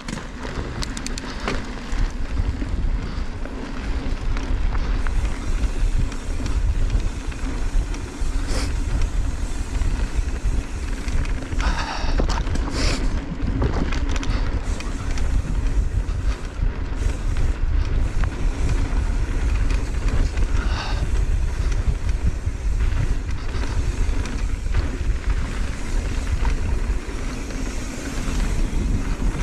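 Wind rumbling over a GoPro action camera's microphone as an Intense M16 downhill mountain bike descends a dirt trail, with tyre and drivetrain rattle and a few sharper knocks from bumps in the trail.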